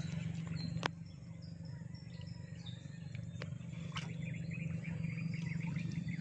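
Birds chirping, a run of short high chirps in the first half, over a steady low hum, with a few sharp clicks.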